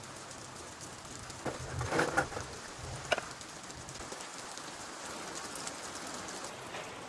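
Steady rain falling, with a few short knocks and clatters about two and three seconds in.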